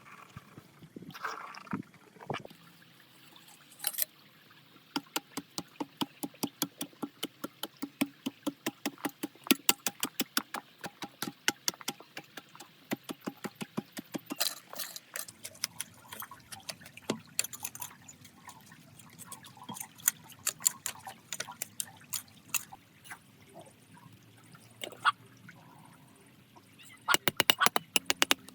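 Rapid light clicking, about four or five clicks a second for roughly ten seconds, then scattered clicks and a quick flurry near the end.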